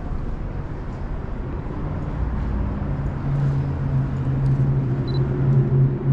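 Subway train rumble at the station platform. A low steady hum comes up about three seconds in and grows louder toward the end.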